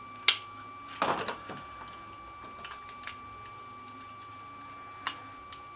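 Plastic clicks and clacks of a Car Robots God Magnus transforming toy being handled as its parts are moved and snapped into place. There is one loud snap just after the start, a short clatter about a second in, then scattered light clicks, over a faint steady high whine.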